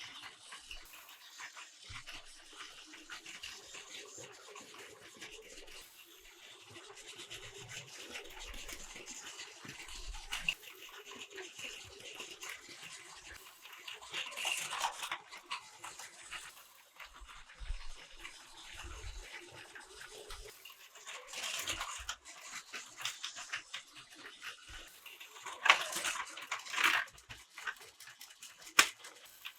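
Battery-powered Plarail toy train running on plastic track: a faint small-motor buzz with rapid small clicks, growing louder three times as it comes close, about 14, 21 and 26 seconds in.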